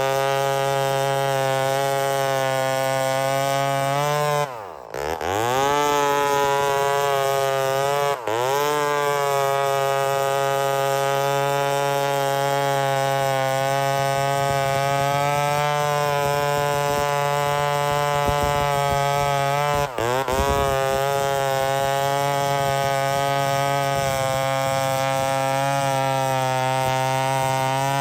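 Vintage Lombard 5.1 cubic-inch two-stroke chainsaw running hard at a steady high pitch while bucking wood. The pitch and loudness dip sharply and recover about four and a half seconds in, with shorter dips around eight and twenty seconds in.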